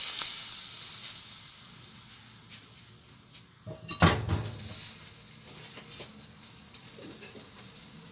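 Hot oil sizzling over garlic and dried red chillies on shredded white radish, fading away over the first few seconds as it cools. About four seconds in, a brief clatter of cookware.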